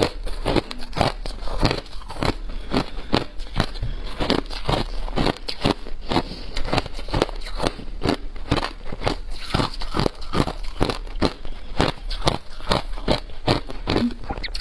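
Crushed ice being chewed close to a clip-on microphone: a steady run of sharp, crisp crunches, about three a second.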